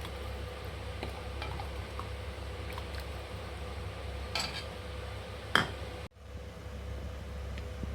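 A metal spoon stirring and lightly clinking against a dish of soup over a steady low hum, with one sharper clink about five and a half seconds in. The sound cuts out briefly just after.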